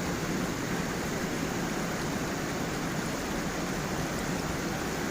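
Steady rushing of water from a small waterfall on a stream, an even unbroken hiss with no distinct splashes.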